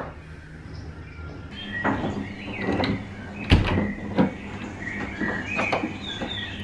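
A cubicle door's metal latch and lever handle being worked: several sharp clicks and clunks, the loudest about three and a half seconds in. Piped-in birdsong chirps steadily underneath.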